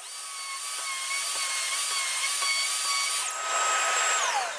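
Festool plunge router running at full speed with a high whine as its large-diameter bit plunges into stacked MDF, the pitch wavering slightly under the cut. Near the end the router is switched off and winds down, its pitch falling.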